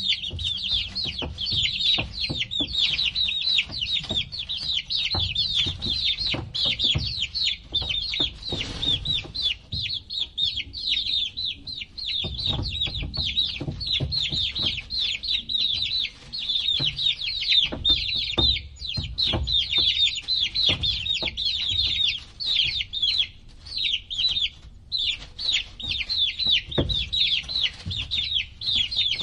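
A group of baby chicks peeping constantly, many short high falling peeps overlapping, with scattered soft low knocks and bumps underneath.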